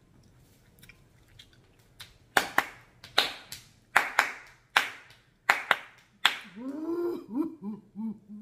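About nine sharp hand claps, some in quick pairs, followed near the end by wordless sing-song humming.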